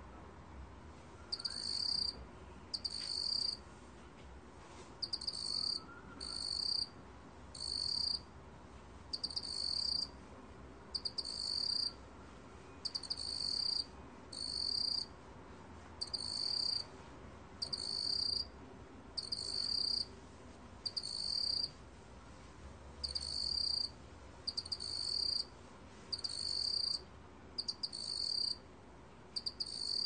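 Black field cricket (먹귀뚜라미) singing, recorded at 23 °C: a high-pitched trilling chirp in bursts of about half a second to a second, repeated roughly once a second, with a couple of slightly longer pauses.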